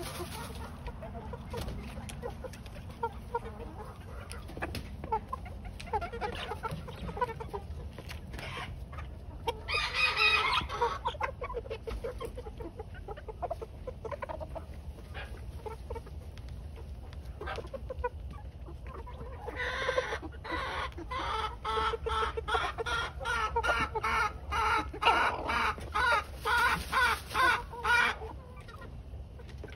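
Young cockerels clucking and calling, with a louder call about ten seconds in and a run of rhythmic calls, about two a second, through the last third.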